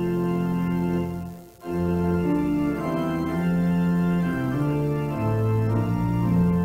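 Organ playing a slow piece in sustained chords, the chords changing about once a second; the music stops briefly about a second and a half in, then carries on.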